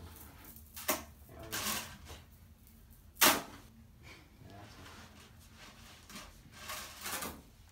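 A few light knocks from movement on a padded table, the sharpest one about three seconds in, among soft rustling swishes.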